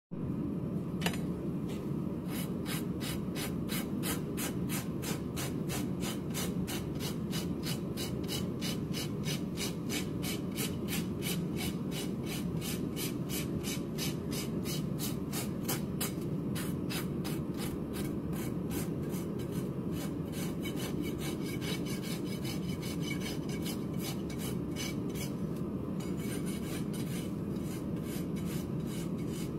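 Farrier's hoof rasp filing the outer wall of a horse's hoof in quick, even, repeated strokes.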